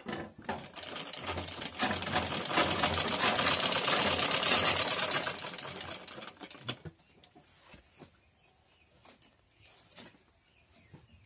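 Domestic sewing machine stitching cloth in a fast, continuous run of clicks for about five seconds, then stopping. A few faint clicks follow.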